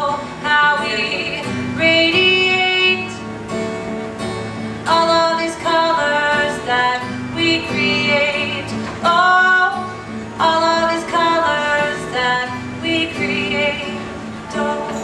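Strummed acoustic guitar accompanying a woman singing an original song, in sung phrases of a few seconds each.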